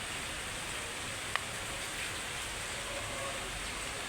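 Steady rain hiss, with one sharp click about one and a half seconds in.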